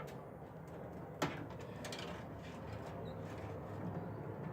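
A single sharp click about a second in, over a faint, steady low hum.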